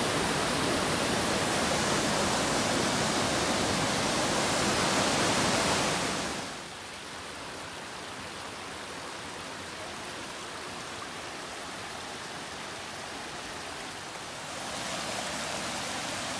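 Rushing creek water, a steady wash of noise. It is loud for the first six seconds, drops to a fainter rush about six and a half seconds in, and swells again near the end.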